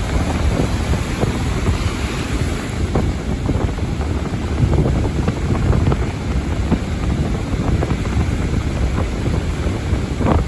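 Small waves breaking and washing over very shallow water, with many short splashes, under heavy wind buffeting on the microphone.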